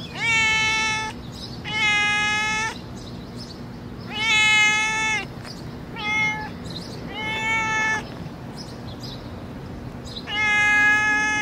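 A thin, hungry stray cat meowing six times, each meow about a second long on a steady, fairly high pitch. The fourth meow is shorter than the rest.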